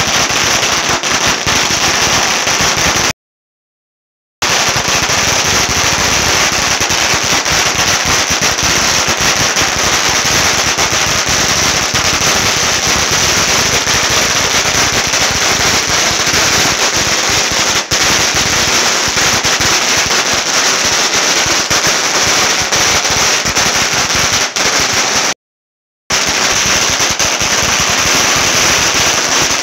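Strings of firecrackers going off on the ground in a rapid, continuous crackle of bangs. The sound cuts out completely for about a second around three seconds in, and briefly again near the end.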